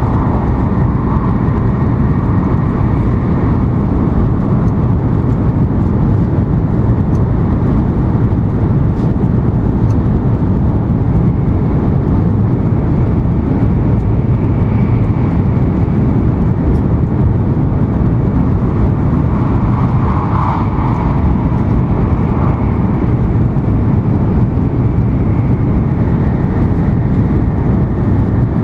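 Steady low rumble of an N700 series Shinkansen running at speed, heard inside the passenger cabin, with a brief swell about twenty seconds in.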